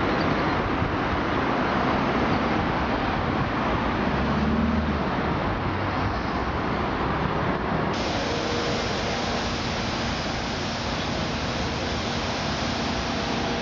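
Steady hiss of road traffic, without distinct passes. About halfway through, a faint steady hum joins it.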